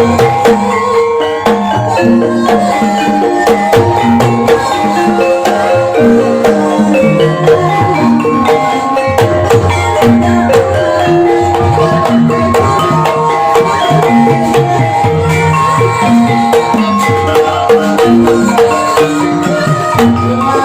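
Gamelan ensemble playing ebeg accompaniment: a steady, repeating melody on struck pitched percussion over drum strokes.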